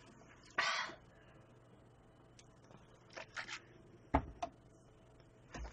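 A short breathy hiss about half a second in, a sharp breath from the spicy food, then a few light clicks and knocks of small items being handled on the table, the sharpest about four seconds in.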